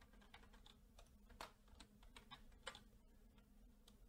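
Faint keystrokes on a computer keyboard: a dozen or so short, irregularly spaced clicks as a word is typed, over a faint steady hum.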